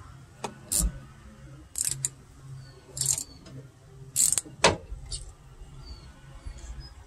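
Hand ratchet wrench clicking in short runs, a few strokes at a time, as a battery terminal clamp is tightened by hand, over a faint low hum.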